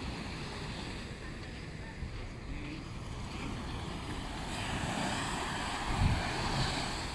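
Sea waves washing onto a beach, one swelling up about four and a half seconds in, with wind gusts buffeting the microphone and a louder gust about six seconds in.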